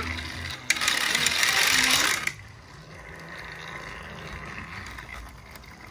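Battery-powered Thomas TrackMaster toy engine's small geared motor running as it drives along the plastic track. About a second in there is a sudden loud burst of noise lasting about a second and a half.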